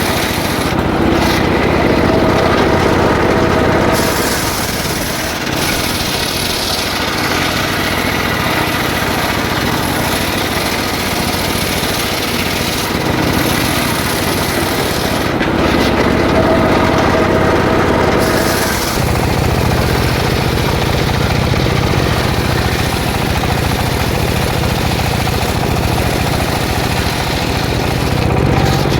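Stihl two-stroke petrol engine driving a circular saw blade through jackfruit wood, running hard with its pitch and load shifting as it cuts. About two-thirds of the way through it settles into a steadier, lower running.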